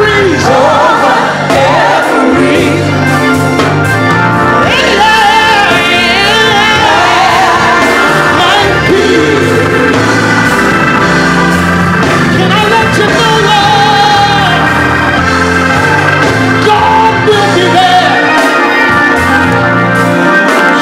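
Live gospel music: a man singing into a microphone with a wavering vibrato, over sustained organ accompaniment.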